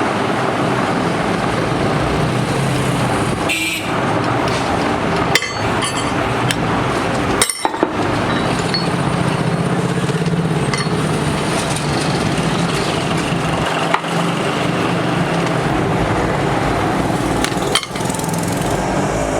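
A motor vehicle's engine running steadily, broken by a few sudden cuts.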